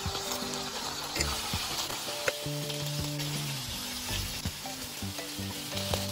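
Chicken liver pieces frying in oil in a pan, a steady sizzle, with a few light clicks and scrapes of a fork and spatula against the pan as the food is turned and stirred.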